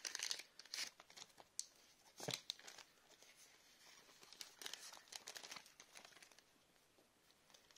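Faint crinkling and tearing of a Pokémon card booster pack's foil wrapper as it is torn open. There are scattered crackles, one sharper snap about two seconds in, and softer rustling later on as the cards are handled.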